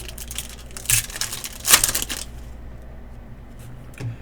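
Trading cards and their packaging being handled, rustling and crinkling, with two louder crinkles about one second and nearly two seconds in, then quieter.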